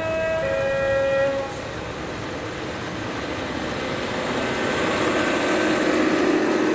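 Two-tone horn of a model GBRf Class 66 diesel locomotive sounding low, higher, low and stopping about a second and a half in, then the locomotive's steady drone and running noise getting louder as the train comes closer.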